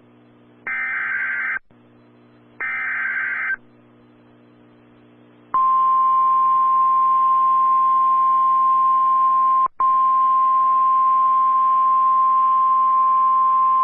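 NOAA Weather Radio alert start: two bursts of SAME header data, buzzing two-pitch digital tones about a second each and a second apart, then a couple of seconds later the 1050 Hz weather alert tone, one steady high beep held for about nine seconds with a brief break midway. Together they signal that a weather warning broadcast is about to begin.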